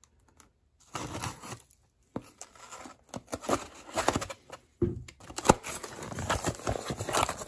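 A small pocket knife slitting plastic packing tape on a cardboard box, then the tape tearing and the cardboard flaps pulled apart: a run of scratchy crackles, rasps and clicks starting about a second in and growing busier.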